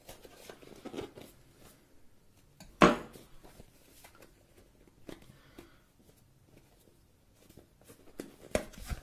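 Knife slitting the seal of a cardboard phone box, with small scrapes and rustles of the cardboard. About three seconds in comes a sharp knock as the knife is set down on a wooden table, and near the end a few more knocks and clicks as the box is pried open.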